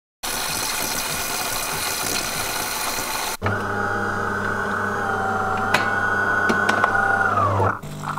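DeLonghi PrimaDonna Class bean-to-cup coffee machine at work making a latte macchiato. First comes about three seconds of even hissing, then a steady motor hum with a high whine that drops in pitch and cuts off near the end.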